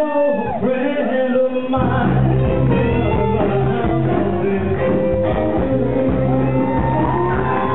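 Audience cheering and shouting, then about two seconds in a live rock and roll band comes in loud with a heavy, steady bass line.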